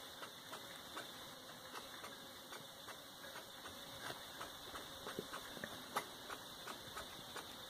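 Squirrel gnawing and cracking palm fruit: faint, irregular sharp clicks, a few louder ones toward the end, over a steady outdoor hiss.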